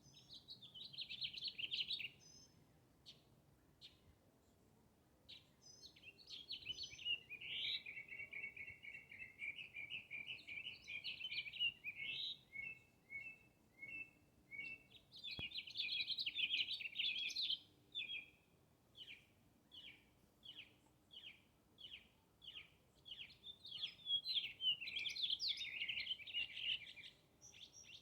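A songbird singing a long, varied song: stretches of rapid warbling and trills alternate with runs of short repeated notes, about two a second, after a short pause near the start.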